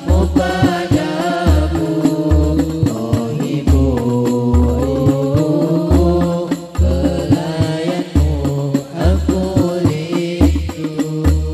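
Rebana ensemble performing: voices singing a melody over frame drums, with deep drum beats keeping a steady pulse.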